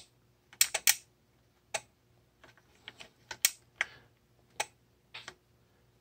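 Irregular light clicks and taps, about a dozen, some in quick pairs, as an electronic water feeder's control board and its sheet-metal box are handled.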